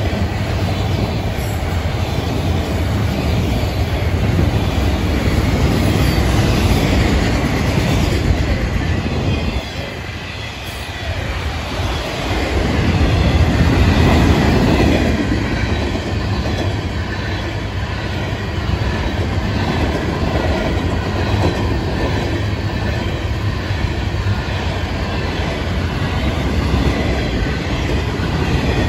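Florida East Coast freight train's cars rolling past close by: autoracks, boxcars and gondolas with steel wheels running over the rails in a steady loud rumble that dips briefly about ten seconds in, then swells again.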